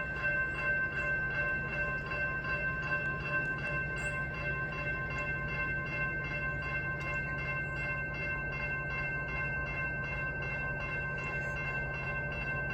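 Coal train rolling past: a steady low rumble from the cars, a fast even clicking of about two to three strokes a second, and high steady ringing tones over it.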